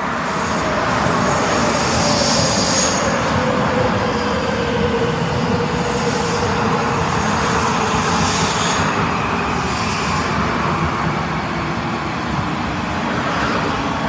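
Metro train approaching: a loud, steady rumble with a slowly falling whine and a few brief high squeals.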